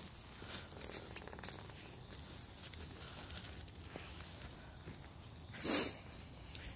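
Light scattered clicks and steps of a hike on a muddy trail, with the light conditioning chain on a dog's weight harness clinking as it drags. Near the end comes one short rushing noise, the loudest sound.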